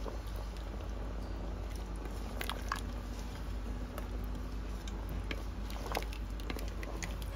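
A few scattered light clicks and taps of cookware being handled, over a steady low hum.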